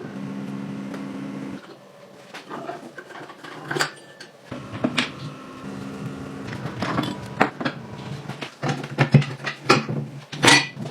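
A small motor hums steadily and stops about a second and a half in, then a run of clicks and knocks follows. The hum comes back about four and a half seconds in, with more sharp knocks over it.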